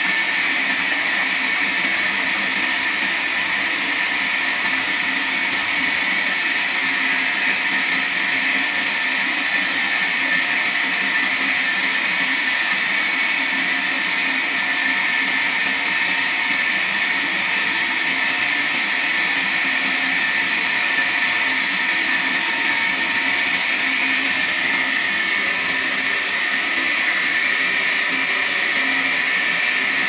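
Horizontal band sawmill running, its band blade cutting lengthwise through a large log with a steady, high-pitched sawing hiss.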